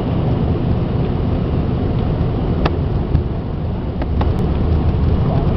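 Cabin noise inside an Embraer ERJ 145 rolling along the runway: a steady low rumble from its twin turbofan engines and the wheels on the concrete, with a few sharp clicks.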